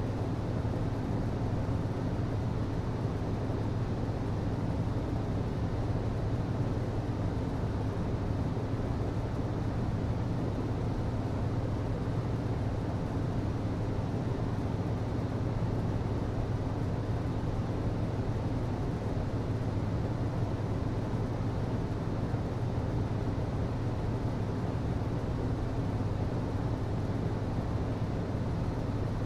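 HVAC system running steadily: a constant low hum with an even rush of moving air over it.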